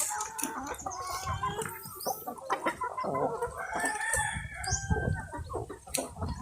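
Chickens clucking, with a rooster crowing partway through.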